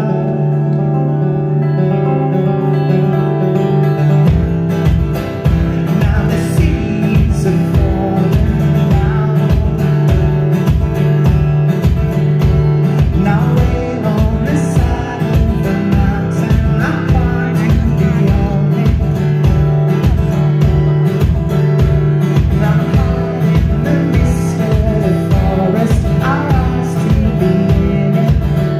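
Live acoustic guitar strumming a song, joined about four seconds in by a steady kick-drum beat.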